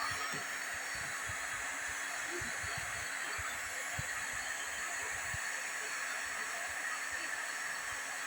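Steady hiss of a hot-air plastic welding gun blowing, with a faint steady hum and some low knocks in the first half.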